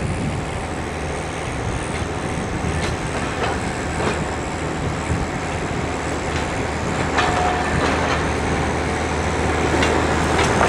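Restored tram running along the track: a steady low running noise, with a few clicks and knocks from the wheels on the rails and a brief whine about seven seconds in.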